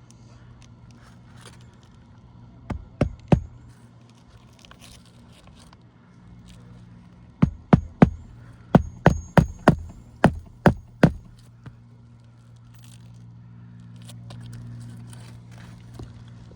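Hammer driving roofing nails into asphalt shingles. There are three quick strikes about 3 seconds in, then a run of about ten strikes a few seconds later, over a steady low hum.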